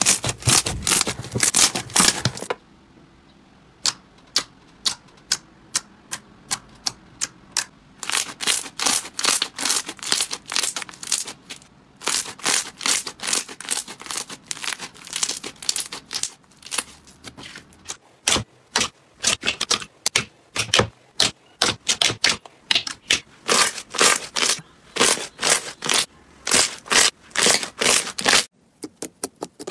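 Slime being squeezed and kneaded by hand, giving fast runs of crisp crackling clicks and pops. The clicking comes in several spells, with a stretch of only scattered single clicks after the first couple of seconds.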